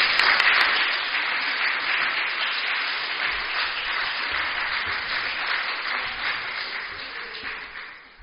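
Audience applauding, slowly dying away toward the end.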